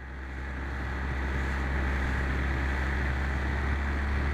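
Tohatsu MFS 9.9/20 four-stroke outboard motor running steadily, pushing a boat under way, with wind and water noise; the sound fades in at the start.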